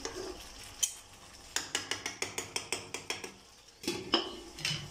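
A steel spatula scraping and knocking against a kadai as a thick mutton-and-potato curry is stirred and browned, in a quick run of strokes. Near the end a metal lid is set on the pan with a couple of clanks.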